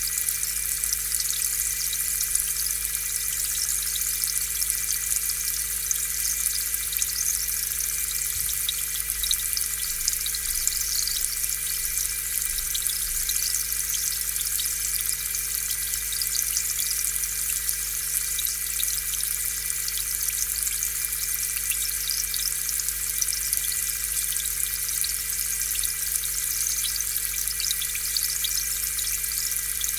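Aquarium air pump running steadily with a low hum, pushing air bubbles that fizz and pop in the tank water.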